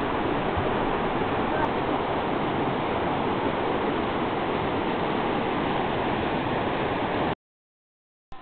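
Steady rush of a fast-flowing rocky river's rapids. The sound cuts out abruptly to dead silence about a second before the end.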